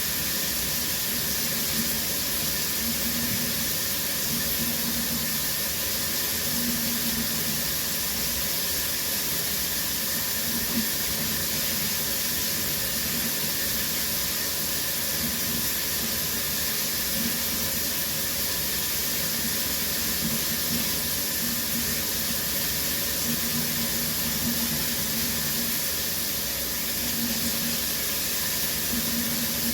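Shower running steadily: water spraying from the shower head and splashing down, a constant even hiss.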